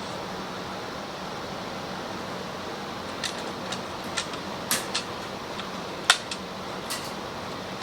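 A series of light clicks and taps from the engine's oil dipstick being pulled out and pushed back in to check the oil level, the sharpest a little after six seconds. A steady hiss runs underneath.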